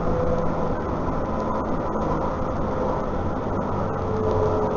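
CAF Urbos 3 tram running at speed, heard from on board: a steady rumble with a whine that fades out near the start and comes back a little lower near the end.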